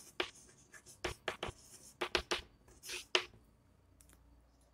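Chalk writing on a chalkboard: a quick series of short scratches and taps as a word is written, stopping about three and a half seconds in.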